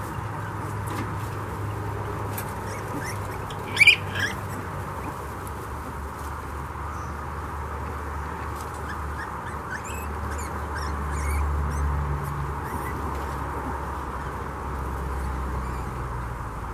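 Mini pig sow and her nine-day-old piglets as they nurse: low grunting and small squeaks, with one short, loud squeal about four seconds in.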